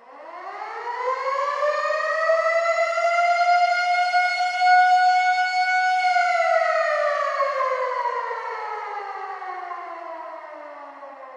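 Air raid siren winding up from a low pitch to a steady high wail over about three seconds, holding it for about three seconds, then winding down in a long, falling wail.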